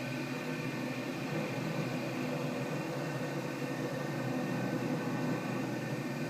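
CNC machining center running steadily while machining a bottle: a constant mechanical hum made of several fixed tones over a steady hiss.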